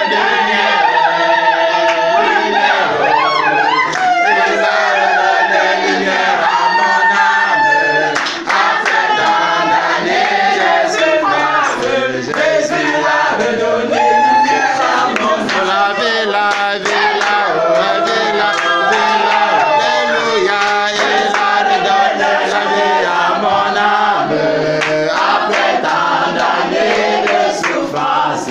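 A group of mostly women's voices singing a Christian worship song together, with hand clapping along to the beat.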